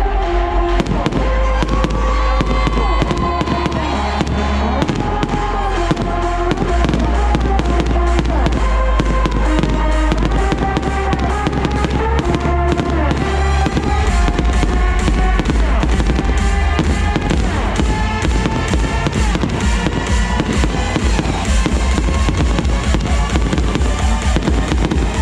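Fireworks show set to music: rapid, continuous bangs and crackles of bursting shells over loud music with a heavy bass line.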